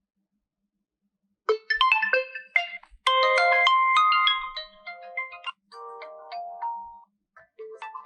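An Oppo Reno7 Lite 5G alarm tone plays from the phone's speaker: a melody of short pitched notes that starts about a second and a half in. It is loudest in the middle, then trails off into softer notes, and a few more notes start up near the end.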